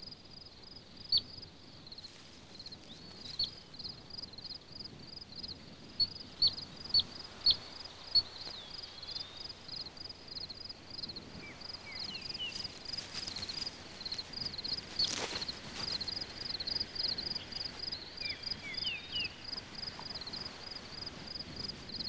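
Wild grassland ambience: an insect chirping in a steady, even rhythm throughout, with a run of sharp, high single chirps in the first eight seconds that are the loudest sounds. A few short warbling calls come later.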